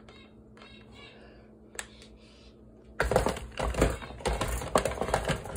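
Kitchen items being handled on a counter: faint at first, then about three seconds in a sudden rapid clatter of sharp clicks and knocks, like utensils and containers being picked up and set down.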